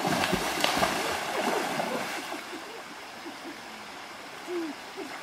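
Water splashing as a boy wades fast through a shallow stream, easing off after about two seconds into the steady rush of the flowing stream.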